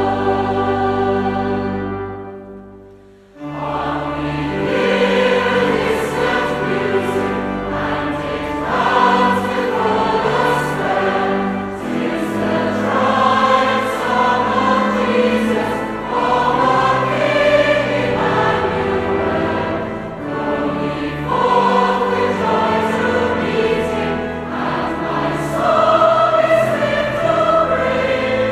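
A choir sings a hymn with accompaniment. A held chord at the end of one verse fades away about three seconds in, and after a brief pause the next verse begins.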